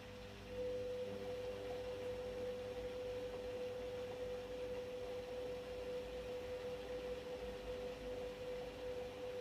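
Beko washing machine giving a steady, even electrical hum that starts about half a second in and holds without change.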